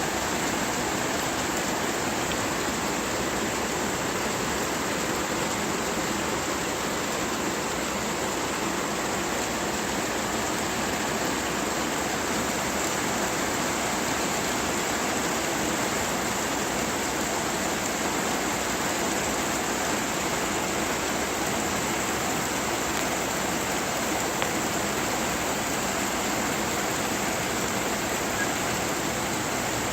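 Heavy rain falling in a downpour: a steady, even hiss of water.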